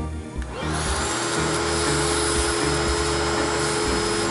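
Shop vacuum running, its hose nozzle sucking metal chips out of a milled slot. It swells in about half a second in and then holds a steady rushing hiss with a constant whine.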